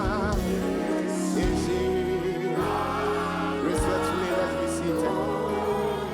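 Gospel worship music: sustained instrumental chords with singing voices.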